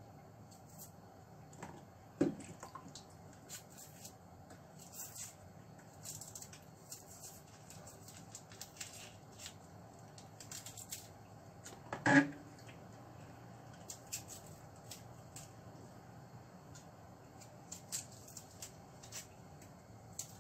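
A small kitchen knife scraping and picking the papery skins off shallots: a run of faint, irregular crackles and scrapes, with two louder knocks, one about two seconds in and one about twelve seconds in.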